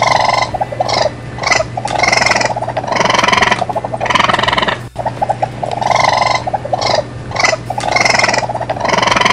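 Ring-tailed lemur calls: a string of short cries, some of them rapid chattering, repeating over and over above a steady low hum.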